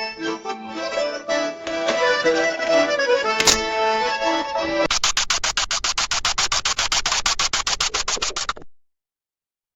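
A short melodic music cue of held, changing notes, broken by one sharp click about three and a half seconds in. Then a rapid, even pulsing sound effect, about ten pulses a second, runs for about three and a half seconds and cuts off suddenly.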